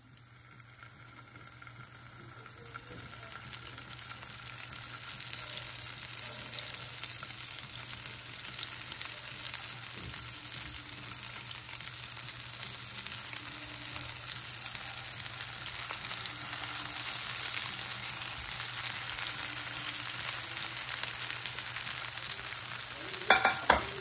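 Vegetable-oat cutlets shallow frying in oil in a nonstick pan: a steady sizzle with fine crackling that grows louder over the first few seconds as the pan fills. A brief ringing knock sounds near the end.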